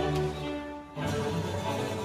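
Background music with bowed strings and harpsichord; it thins briefly just under a second in, then picks up again.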